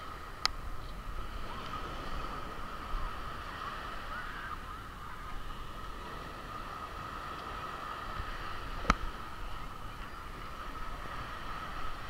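Beach ambience: wind buffeting the microphone and gentle surf, with a steady high hum throughout and two sharp clicks, one just after the start and one about nine seconds in.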